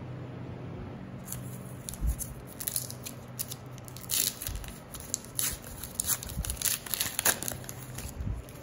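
Foil wrapper of a Panini Adrenalyn XL card packet being torn open and crinkled by hand, starting about a second in as irregular crackling and tearing, with a few soft bumps of the pack being handled.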